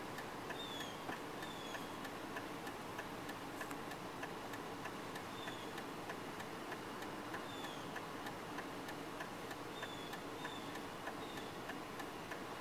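Faint steady noise from inside a slowly moving car, with light ticking and about a dozen short, falling high chirps scattered throughout.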